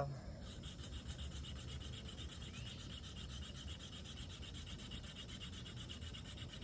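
Hand drill fire-by-friction set: a wooden spindle spun back and forth between the palms, its tip grinding in the notch of a wooden hearth board, making a steady dry rubbing. The friction is heating board and spindle toward smoke and an ember.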